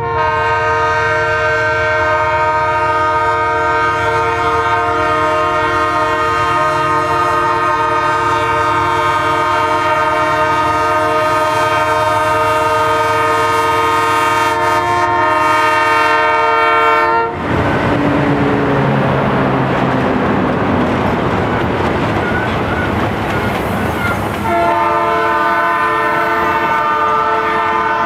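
Freight train air horn held in one long chord of several notes, cutting off about 17 seconds in. The diesel locomotives' engines and wheels then pass close by as a loud roar. A second long horn blast begins about 25 seconds in and runs on while the wagons roll past.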